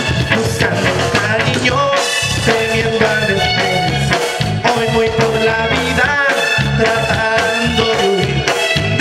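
Live Tierra Caliente band music: keyboard melody lines over electric bass and drums, playing on without a break.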